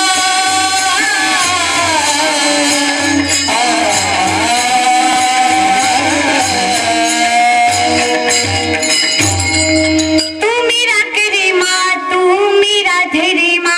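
Devotional kirtan singing: voices sing a long melodic line over the steady clash of small hand cymbals (taal). About ten seconds in the singing breaks into shorter phrases and the cymbal strokes come crisper and thicker.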